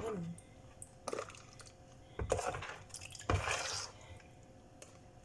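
Plastic scraper scooping a creamy macaroni salad out of a plastic basin into a black plastic food container: three short bursts of wet scraping and light plastic knocks, the longest past three seconds, over a faint steady hum.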